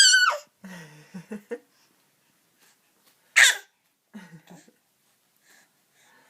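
Two loud, high-pitched squeaks with a wavering pitch, each about half a second long, one at the start and one about three and a half seconds in. Each is followed by short, low, voice-like sounds.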